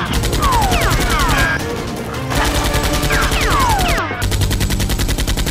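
Action-film automatic gunfire sound effects in three rapid bursts, with several falling whistling whines, over background music.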